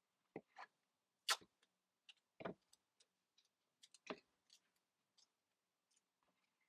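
Scattered short clicks and crinkles of cardboard pieces, brown packing tape and a utility knife being handled, the loudest a little over a second in.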